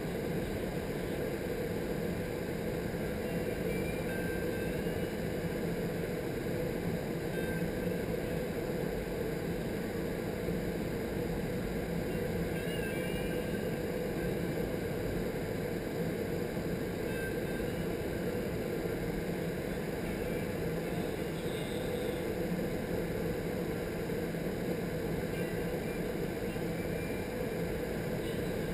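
Vertical wind tunnel for indoor skydiving running at flying speed: a steady rush of air through the flight chamber with a steady low fan hum beneath it.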